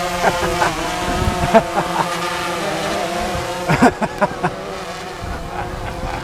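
Small quadcopter drone's propellers humming at a steady pitch, with a few short clicks or chirps over the hum.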